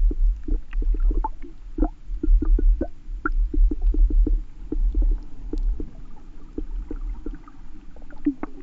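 Underwater sound picked up through a GoPro's waterproof housing: a low rumble of water moving against the housing with many irregular sharp crackling clicks. The rumble eases off after about five seconds while the clicks go on.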